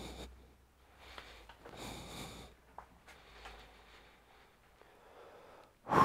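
Quiet rustling from gloved hands handling laptop parts, with a small click near the middle. Just before the end comes a louder knock and rustle as the motherboard is lifted and handled.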